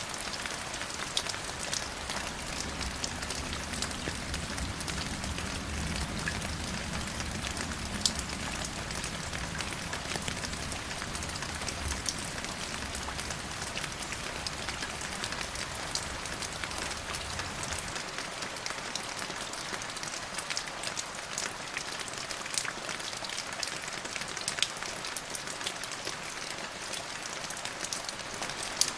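Steady rain falling on a surface, an even hiss scattered with sharp ticks of individual drops. A low rumble underneath stops about two-thirds of the way through.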